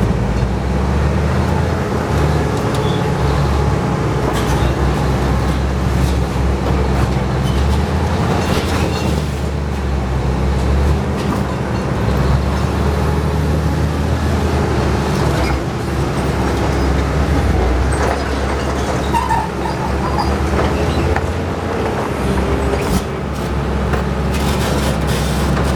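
Heavy diesel engines of a bulldozer and a backhoe running hard under load as they push against a boulder: a loud, steady low drone that rises and dips a little.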